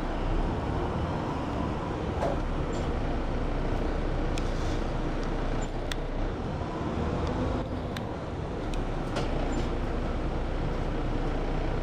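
City bus heard from inside while driving: a steady engine and road rumble, with a few faint clicks from interior rattles.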